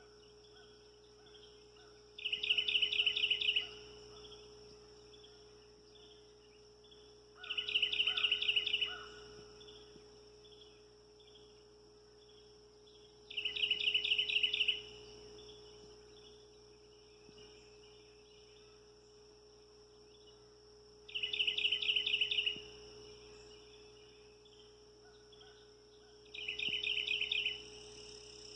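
Nature ambience: a bird's rapid trill of fast repeated notes, heard five times, each about a second and a half long, over a steady high-pitched drone.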